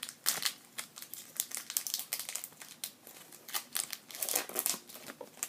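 Foil Pokémon trading card booster pack wrapper crinkling and crackling as it is handled, with many quick irregular crackles.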